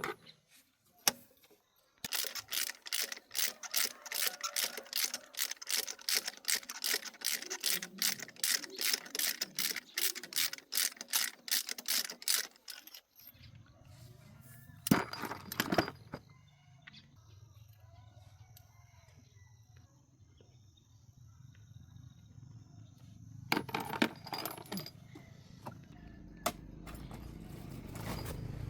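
Metal hand-tool work on a car: a long run of rapid, even metallic clicks, about three a second, like a ratchet wrench being worked. The clicks stop about halfway through, and a low steady hum takes over, with a few clanks.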